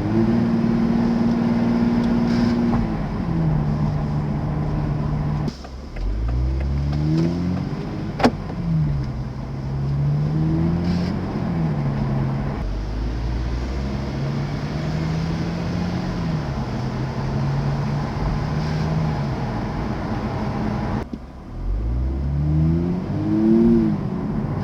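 Toyota GR Supra accelerating and changing gears, its engine pitch climbing and then stepping down at each shift. A single sharp click comes about eight seconds in. The owner reports an abnormal noise on the second-to-third gear change.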